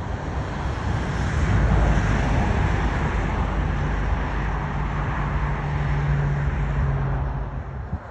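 Vehicle engine rumble with traffic-like noise, a steady low hum holding for several seconds before the sound drops off abruptly near the end.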